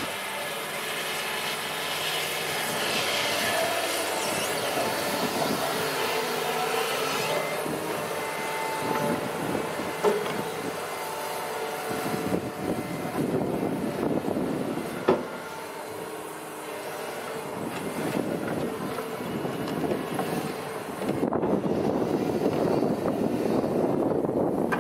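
Doosan DX225LCA crawler excavator working: its diesel engine runs steadily under hydraulic load as it tracks and swings, with metallic squeaks and a couple of sharp clanks. A louder rushing noise comes in near the end as the bucket tips sand onto the truck's load.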